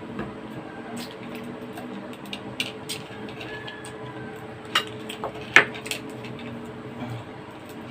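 Spoons and cutlery clinking against bowls and plates while eating, a scatter of sharp clinks with the loudest about five and a half seconds in, over a faint steady hum.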